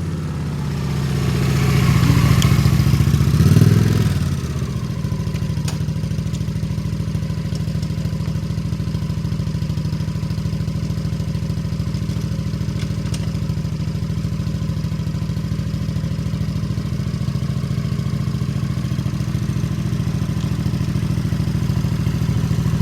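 Honda Shadow motorcycle's V-twin engine running. It grows louder for the first few seconds, then settles to a steady idle.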